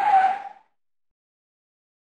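A brief screech-like sound effect with one slightly falling tone over a hiss, cutting off about half a second in.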